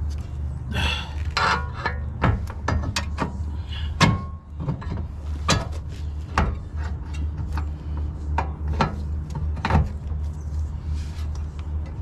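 Irregular metallic clanks, knocks and scraping as a heavy Honda CR-V front spindle, with its hub and brake rotor, is worked onto the axle and ball joints, with a sharper knock about four seconds in. A steady low hum runs underneath.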